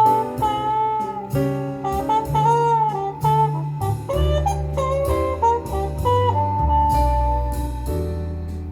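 Recorded jazz played back through Wharfedale Laser 90B hi-fi loudspeakers driven by a Luxman L-215 amplifier: a saxophone carries the melody over deep bass notes, ending on one long held note near the end.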